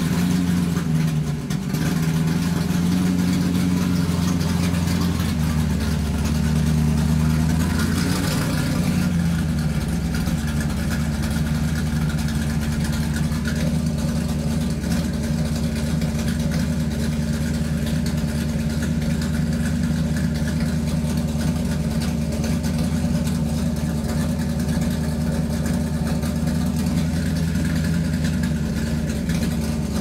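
Motor running loudly with a steady low engine drone. Its pitch wavers a little in the first ten seconds or so, then holds steady.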